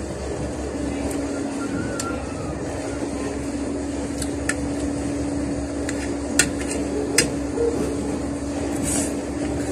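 Metal spoon scraping and clinking against a plate of rice, with a few sharp clinks in the second half, the loudest about two-thirds of the way through. A steady low hum runs underneath.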